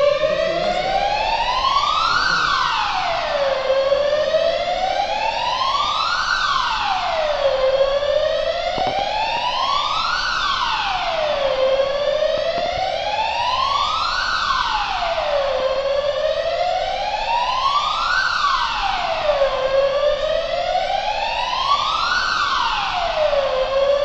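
Electronic fire alarm siren wailing, set off by smoke at the ceiling smoke detector under test. It is loud and sweeps steadily up and down in pitch, one rise and fall about every four seconds.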